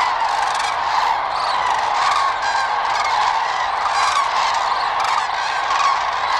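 Large flock of common (Eurasian) cranes calling in flight: a dense, unbroken chorus of many trumpeting calls overlapping at once as the flocks leave their night roost for the fields.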